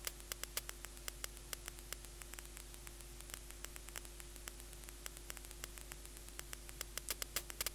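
Synthesized random clicks from the Vital software synth: very short white-noise bursts fired irregularly by an arpeggiator, each placed at a random stereo position and given a random, short decay, making an uneven crackle. The clicks come thicker near the start and again near the end.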